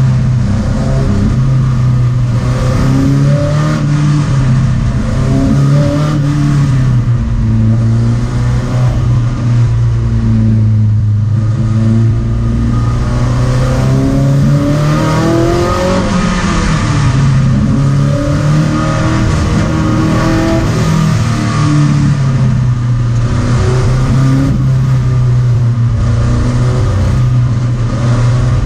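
Skoda 130 RS race car's rear-mounted 1.3-litre four-cylinder engine at speed, heard from inside the cabin. Its pitch keeps rising and falling as the car accelerates and slows through the corners.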